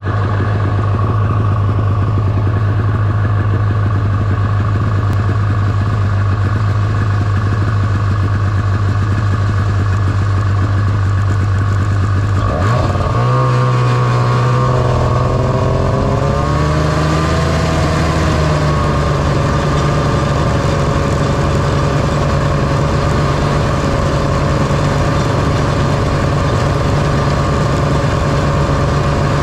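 1978 John Deere Liquifire snowmobile's two-stroke engine running steadily under way. About halfway through, the engine note climbs over a few seconds and then holds steady at the higher pitch.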